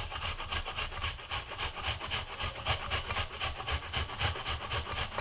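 Red onion being grated on a hand grater: steady rhythmic rasping strokes, about four a second.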